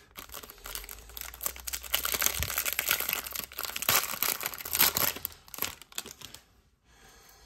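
Plastic foil wrapper of a trading card pack being torn open and crinkled by hand, a dense irregular crackling that dies away near the end.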